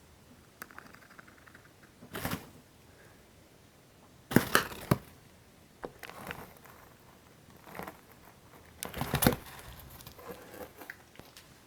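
Pet degus grinding their teeth, a faint rapid clicking chatter that is the sign of a relaxed, content degu. It is broken by a few short, louder bursts of noise about two, four and nine seconds in.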